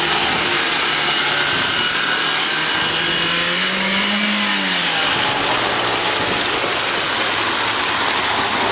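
A small hatchback's engine running as the car pushes slowly through street flood water, revving up and back down once about halfway through. A steady rush of water lies under it.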